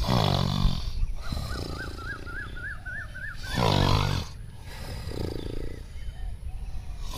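Recorded tiger roar sound effect, standing in for a comic snore, repeating about every three and a half seconds, with a warbling whistle-like tone between the first two roars.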